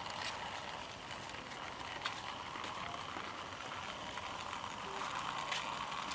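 Small plastic toy train's wheels rolling along a rough concrete ledge as it is pushed by hand: a steady gritty rolling noise with a few light clicks.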